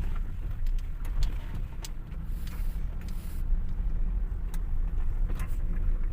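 Car driving along a road: steady low rumble of engine and road, with scattered light knocks and rattles, and a brief hiss about two and a half seconds in.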